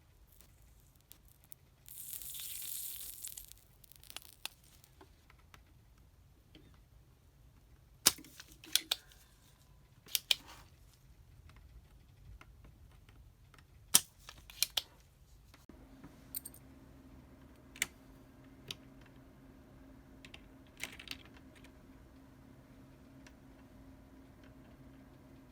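Small hand-work noises while lubing mechanical keyboard switches: a short rustling, crinkling hiss near the start, then scattered sharp plastic clicks and taps, some in quick pairs. A faint steady hum sets in a little past the midpoint.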